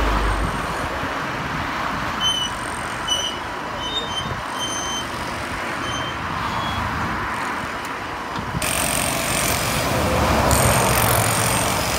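Steady road-traffic noise from vehicles passing on a motorway, with a few short high chirps over it in the middle. About eight and a half seconds in, it cuts abruptly to a brighter, hissier noise.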